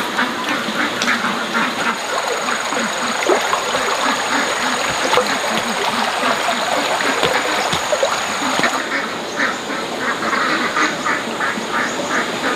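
Ducks quacking repeatedly, with a rapid run of quacks, several a second, in the last few seconds.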